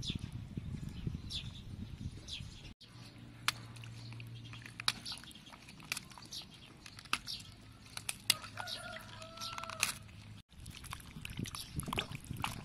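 Hands handling noodles, then rinsing bok choy leaves in a basin of water: scattered wet clicks and splashes, with birds chirping. A steady low hum runs through the middle section, and the sound changes abruptly twice at edits.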